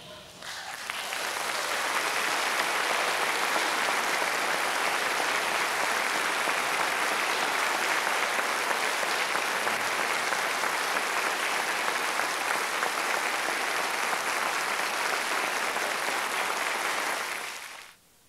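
Concert audience applauding. The applause rises about half a second in, holds steady, and cuts off suddenly near the end.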